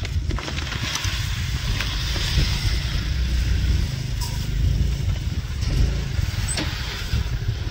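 New Holland 3630 tractor's diesel engine idling steadily, with wheat seed pouring out of a sack into the seed drill's metal hopper.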